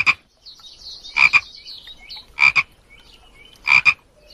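A frog croaking: four short croaks about one every 1.2 seconds, each a quick double pulse, with a fainter high trill behind the first two.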